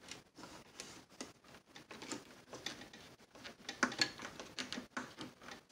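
A run of small irregular clicks and scratches as fingers work a control knob onto its shaft on the front of a Zenith radio, thickest about four seconds in.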